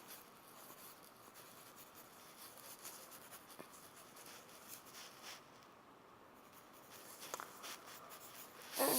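Faint scratching and rubbing, with a few light clicks.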